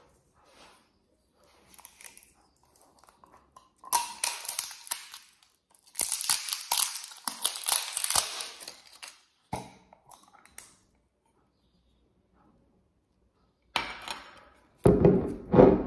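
The seal on a glass jar of spread being peeled and torn away: two stretches of crinkling and tearing, then a few sharp clicks. Near the end comes a knock and handling as the metal lid is set on the table.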